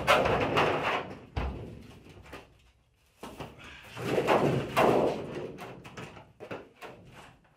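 Thin wooden interior wall panel being forced up into the curved wall by hand, scraping and flexing in two long bouts, with a low thump about a second and a half in and a few light knocks near the end.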